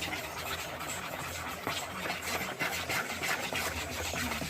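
A spoon scraping and stirring thick muffin batter by hand in a mixing bowl, a continuous rasping scrape, over a low steady hum.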